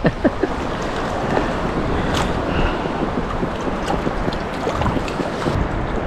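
Surf water lapping and sloshing close around a wading angler, with wind noise on the microphone and a brief splash about two seconds in.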